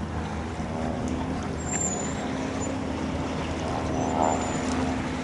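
Boat's outboard engine running at low idle while the boat is eased onto its trailer at the ramp, a steady low hum.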